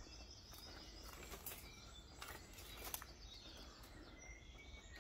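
Quiet outdoor ambience: faint distant birds chirping, a few soft clicks, and a low steady hum underneath.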